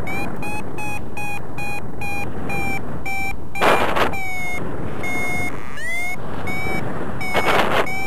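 Paragliding variometer beeping about three times a second, its climb tone in lift, with a few longer beeps near the middle. Steady wind noise on the microphone runs underneath, with louder gusts about four and seven and a half seconds in.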